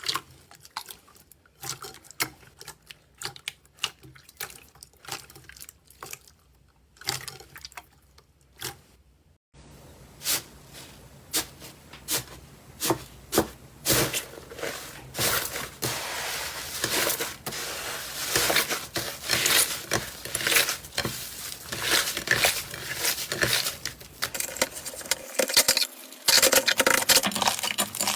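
Slime being squeezed, stretched and pressed by hand: sticky clicks, squelches and small air pops. About a third of the way in the sound changes to a denser, louder run of crackling pops.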